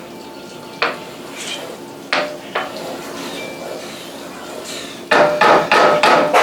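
Cookware and utensils knocking in a kitchen: two separate sharp knocks, then a loud run of quick clattering near the end.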